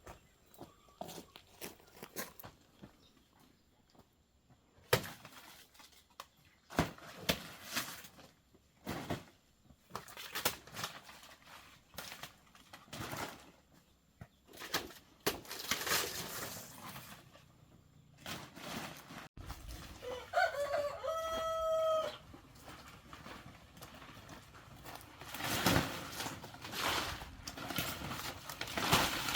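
A rooster crows once, a single call of about two seconds about two-thirds of the way through. Scattered sharp knocks and rustles come before and after it.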